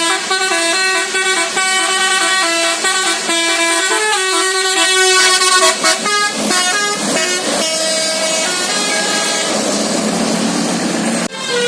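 Multi-trumpet telolet musical air horn on a bus, an 18-horn set, playing a quick tune of stepped notes with several horns sounding together. Near the end the tune thins under a rushing noise and breaks off for an instant.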